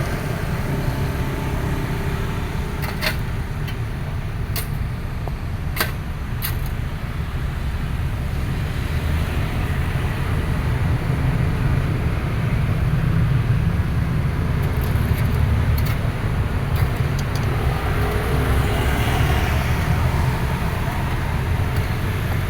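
Excavator's diesel engine running steadily with a low rumble, swelling a little louder midway. A few sharp knocks sound in the first seven seconds.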